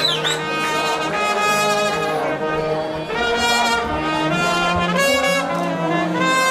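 Brass band with trombones playing a tune, several notes sounding together.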